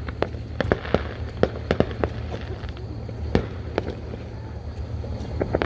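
Distant aerial fireworks: a string of sharp bangs and pops, thickest in the first two seconds, a few more around the middle and another cluster near the end, over a steady low rumble.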